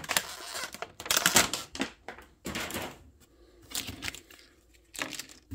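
Clear plastic toy packaging crinkling and crackling as it is handled, in quick irregular bursts that are densest for the first couple of seconds and then thin out to a few separate crackles.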